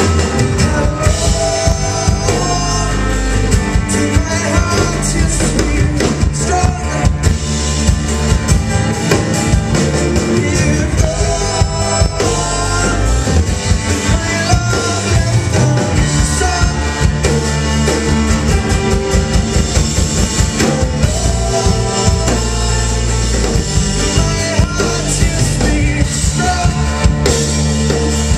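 Live band playing a rock song: acoustic guitar, bass guitar, cello and a drum kit with steady drum hits, loud.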